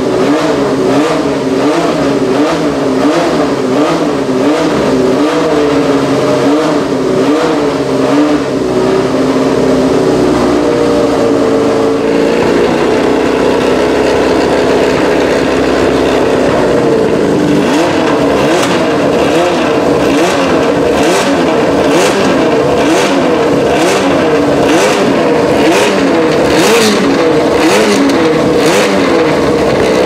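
Ford Cosworth DFV 3.0-litre V8 of a Tyrrell P34 running at a fast idle during warm-up, its pitch rising and falling in a steady rhythm as the throttle is worked. The pitch holds steadier for a few seconds around the middle. In the last ten seconds the rhythmic rises come with a sharp pop at each one, about once a second.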